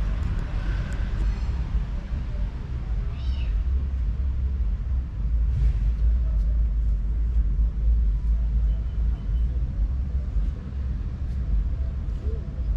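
A cat, likely a kitten, giving a few short high-pitched meows, the clearest about three seconds in, over a steady low rumble.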